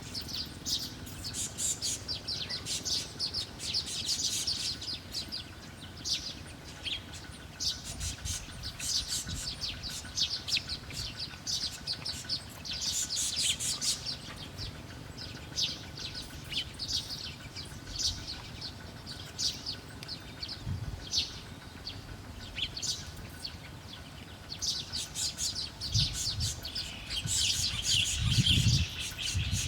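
Small birds chirping in rapid, short, high calls, coming in busy clusters throughout. Near the end a low rumble comes in under the chirps.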